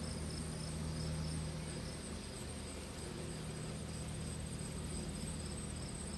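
Late-summer field insects: a steady high-pitched cricket trill with a softer chirp pulsing about twice a second, over a low steady buzz of insects such as bees.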